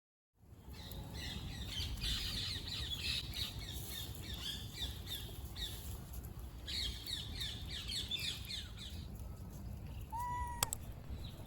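Rapid, high-pitched chirping calls, many short falling chirps in quick succession, in two bouts over a low rumbling background. Near the end a short rising whistle-like tone and a sharp click.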